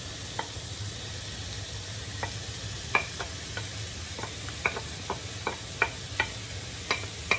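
Shrimp, egg and onion sizzling steadily in a frying pan, while a wooden spatula pushes cooked rice off a plate into the pan. From about two seconds in there is a string of sharp, irregular knocks as the spatula taps against the plate and the pan.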